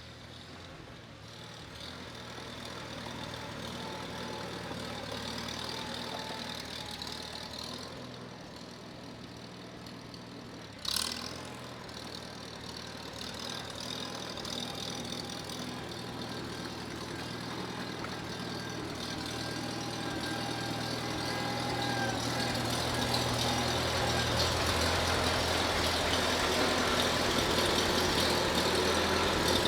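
Farmall Super C tractor's four-cylinder gasoline engine running steadily at idle, getting louder over the last third. One sharp knock about eleven seconds in.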